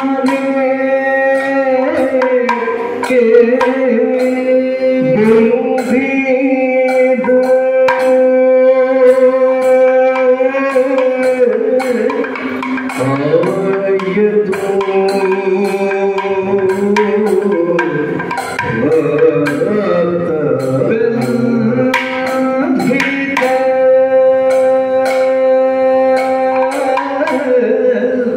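Kathakali music: a male singer's long, ornamented singing over steady held notes, with sharp percussion strokes throughout.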